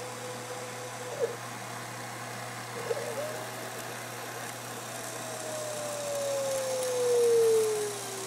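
Homemade CNC machine cutting acrylic: a steady machine hum, with a motor whine that slides slowly down in pitch and grows loudest near the end as the axes move along the cut.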